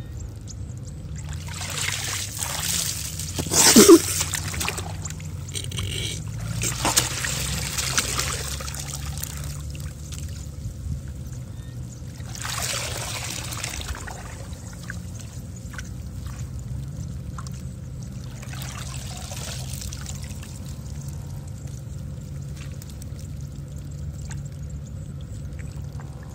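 Shallow muddy water sloshing and splashing as hands grope and scoop through it, in several separate bursts, the loudest about four seconds in, over a steady low hum.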